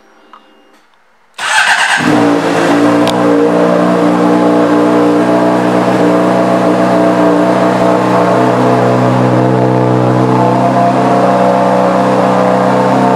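2008 Honda CBR600RR's inline-four engine started about a second and a half in, then idling steadily through its aftermarket exhaust.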